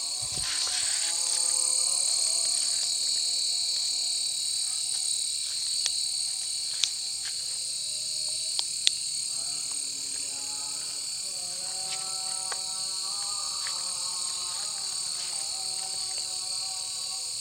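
Night chorus of insects trilling steadily and high, with frogs calling in drawn-out tones that step in pitch. A few sharp clicks come in the middle.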